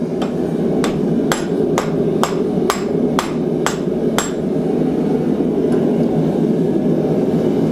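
Hand hammer striking hot steel clamped in a leg vise, nine ringing blows about two a second that stop about four seconds in, over the steady low rush of the running forge.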